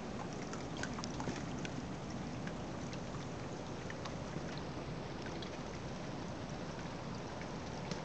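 Water fountain running: water streaming down the face of a large mirror into a trough below, a steady trickling wash dotted with small drip and splash ticks.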